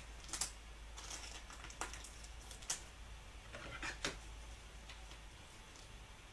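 Faint scattered clicks and light handling noise of trading cards being sorted and flipped, over a steady low hum.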